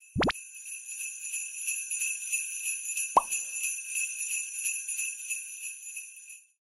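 Sleigh bells jingling with an even shaking rhythm, fading out near the end. A brief sweep comes at the start, and a short falling blip about three seconds in.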